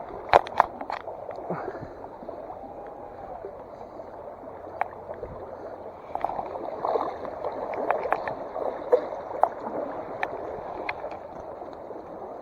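Water running and gurgling steadily, with scattered light clicks and knocks, several in the first second and more between about six and eleven seconds in.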